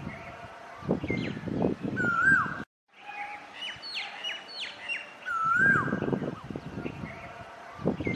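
Asian koel calling: a whistled note that rises, holds and curls down, repeated, with several short falling whistles about midway. Bursts of low rumbling noise run under the calls, and the sound cuts out briefly about a third of the way in.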